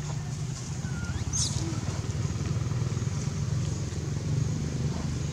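Steady low hum of an engine running at idle, with one brief rising high squeak about a second in.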